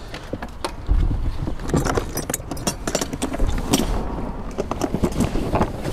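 Plastic rolling tool boxes being handled on concrete: latches clicking and the boxes knocking as they are moved and set down, over a low rumble that swells twice.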